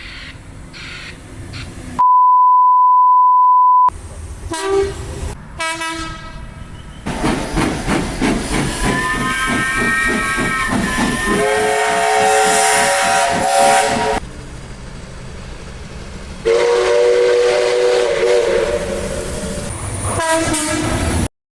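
Train horns in short clips cut together: passing-train noise with a higher horn chord, then a lower horn chord, and later another low horn chord held for about four seconds. A steady electronic beep tone plays for about two seconds near the start, and the sound cuts off abruptly near the end.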